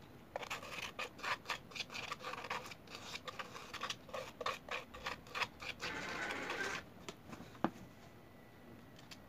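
Plastic spoon scraping chocolate cream out of a plastic bowl in quick repeated strokes, then one longer scrape and a single sharp click.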